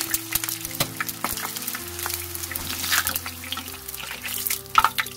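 Shishito peppers deep-frying in hot oil: a dense, irregular crackle of sizzling, over background music.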